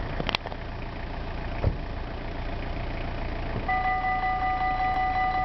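Level crossing warning bell starting to ring about three and a half seconds in, a rapid, steady electronic ringing that signals an approaching train. Before it, a low background rumble with a single thump.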